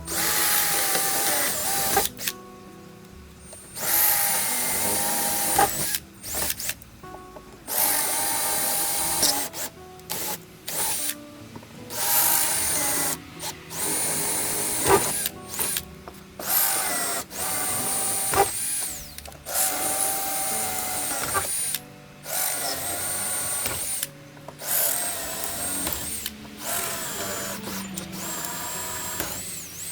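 Cordless drill drilling out the rivets that join a fibreglass sailboat's deck to its hull. It runs in a long series of bursts of a second or two with short pauses between, and its whine drops in pitch as it winds down at the end of some bursts.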